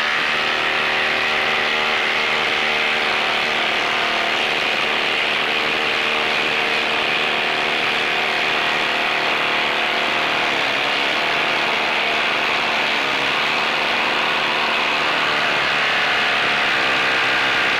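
Flex 24V brushless cordless impact driver hammering steadily as it drives a 6-inch by 1/2-inch lag screw into solid wood under heavy load, then cutting off sharply at the very end.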